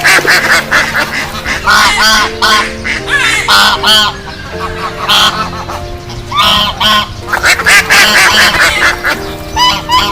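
Waterfowl calling over and over in short honks and quacks, many birds overlapping, over sustained background music tones.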